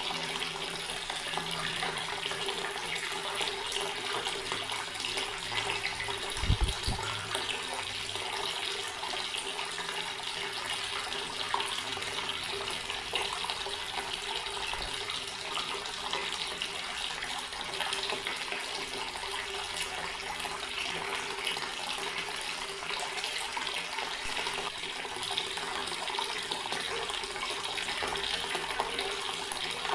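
Water running steadily from a garden tap, an even splashing rush, with one brief low thump about six seconds in.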